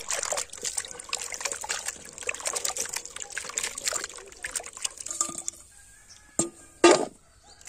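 A hand swishing and splashing chopped green papaya pieces in water in a steel bucket, washing them. The splashing dies down about five seconds in, and two sharp knocks follow near the end as washed pieces go into an empty steel bowl.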